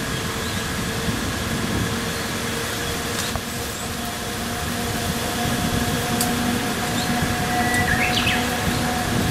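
A steady mechanical hum carrying a few steady tones grows slowly louder. Birds chirp over it, with one short call near the end.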